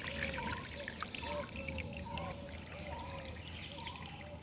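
Water trickling and splashing steadily, with a soft, low call repeating about twice a second underneath.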